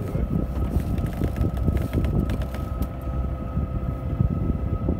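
Wind buffeting the microphone on the deck of a sailing yacht, over a steady mechanical hum with a thin high tone, and a few light clicks about halfway through.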